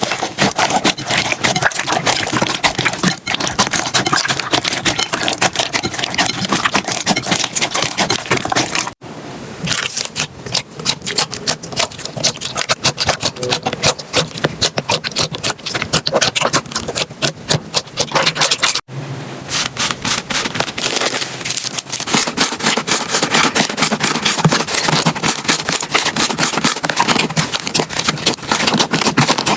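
Slime being squeezed, stretched and poked by hand, giving dense sticky clicks and crackles. Two abrupt cuts change the clip, and the middle stretch is somewhat quieter with more separate clicks.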